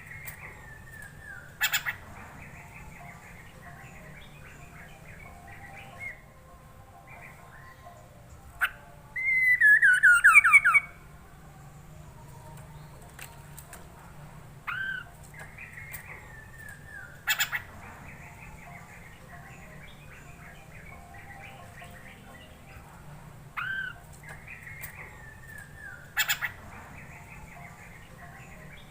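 Poksay mandarin, a laughingthrush, singing: a phrase of rising-and-falling whistled notes, each followed by a sharp click, repeats about every nine seconds over softer continuous chatter. The loudest part is a fast run of descending notes about nine to eleven seconds in.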